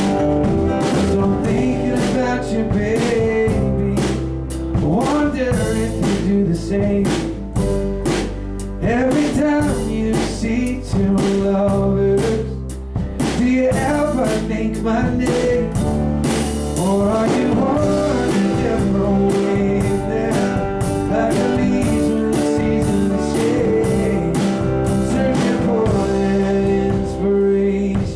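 A live band playing an instrumental stretch of a blues-rock song: guitar over a drum kit with cymbals and steady low bass notes.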